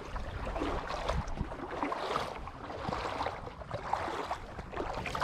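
Legs wading through shallow seawater, the water sloshing and splashing around the shins with each step.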